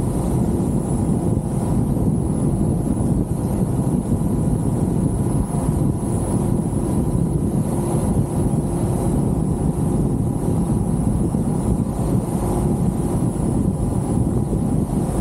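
Wind buffeting the microphone of an open-top Jeep on the move, over steady engine and road noise. A faint, thin high whine runs along on top.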